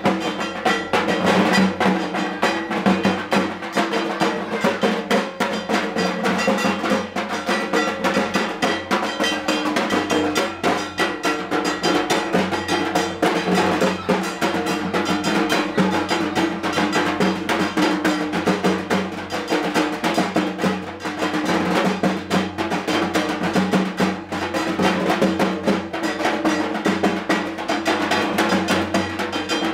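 Fast, continuous drumming that keeps up a steady driving rhythm.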